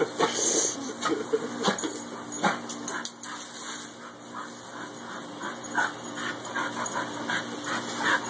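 Two dogs playing in the spray of a garden hose, making short, irregular excited noises as they lunge and snap at the water, over the steady hiss of the hose.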